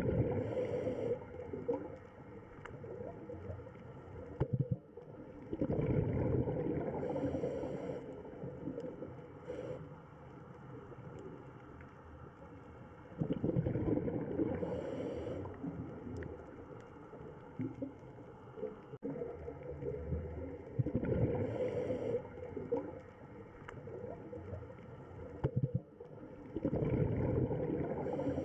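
Underwater sound of a scuba diver breathing through a regulator: a low bubbly gurgle from each exhalation swells up about every seven seconds, with a short hiss from the regulator alongside, over a steady underwater rumble.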